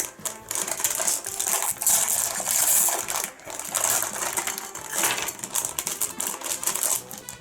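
Crinkling plastic wrapper of a LEGO minifigure mystery bag being opened and handled, with small plastic LEGO pieces clicking and clattering, in uneven surges of crackle.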